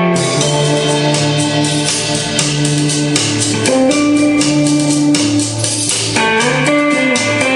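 Guitar-led music with a moving bass line and quick, even percussion ticks, played back loudly through DIY distributed-mode flat-panel speakers driven by sound exciters.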